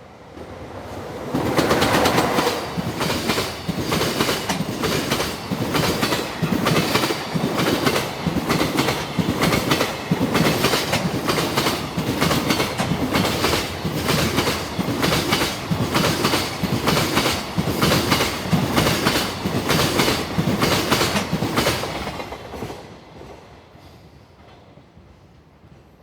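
Freight train hauled by an EF66 electric locomotive passing over rail joints, its wheels striking the joints in a fast, steady clickety-clack. It comes up about a second in and fades out near the end as the train passes.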